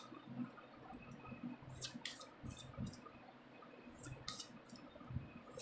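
Deck of oracle cards being handled and split: faint scattered clicks and taps of the card edges, in small clusters, a few of them about two seconds in and again about four seconds in.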